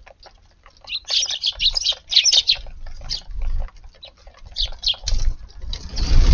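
Eurasian tree sparrows chirping in quick, overlapping bursts, with a few scattered chirps later on. Near the end a loud, broad rustling rush cuts in.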